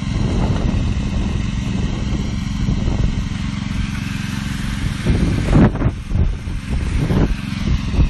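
Small engine of a fiber optic cable pulling machine running steadily as it hauls cable, swelling louder briefly a little past halfway.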